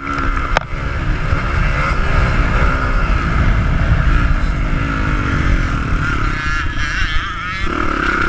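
Dirt bike engine heard from onboard, revving up and down as the rider works the throttle around the track, with heavy wind rumble on the microphone. A few sharp knocks in the first second, and the engine note changes about six and a half seconds in before picking up again near the end.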